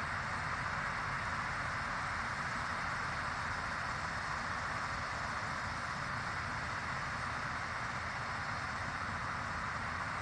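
Steady, even outdoor background noise with no distinct calls or events.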